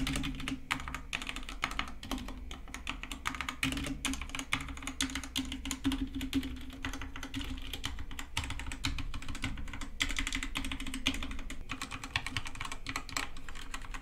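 Redragon tenkeyless mechanical keyboard with red linear switches being typed on: a steady stream of fairly quiet key clicks and spacebar presses, one after another.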